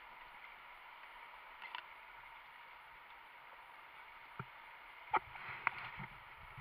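Steady muffled rush of river water heard from underwater, beside an upside-down kayak. A few scattered knocks come through, growing more frequent in the last second and a half.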